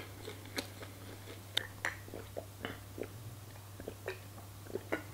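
Close-up mouth sounds of someone eating fried chicken: soft, irregular wet clicks and smacks of chewing, over a steady low hum.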